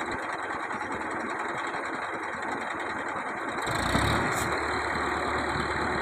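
Escorts Hydra 12 crane's diesel engine running steadily under load. A little under four seconds in, it picks up into a deeper rumble, and a short knock follows about half a second later.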